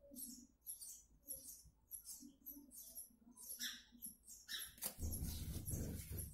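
Faint sound from a homemade transistor amplifier driving an 8-inch speaker, playing audio: high chirping ticks repeat about two or three times a second, and low bass comes back in about five seconds in.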